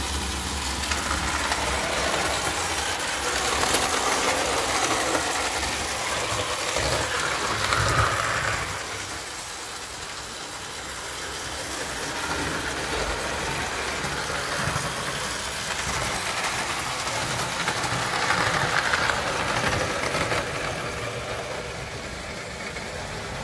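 Märklin ME 70/12920 gauge 0 tinplate model locomotive running on metal track: its motor whirs and its wheels rattle along the rails. The sound swells twice as the locomotive passes close, and dips in between.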